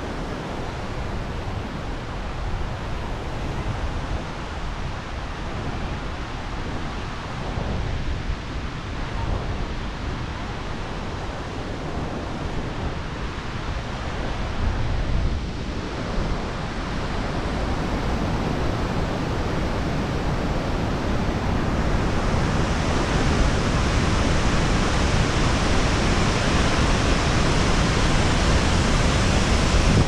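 Steady rushing of a waterfall in heavy flow, mixed with wind buffeting the microphone. The rush grows louder and brighter about two-thirds of the way through.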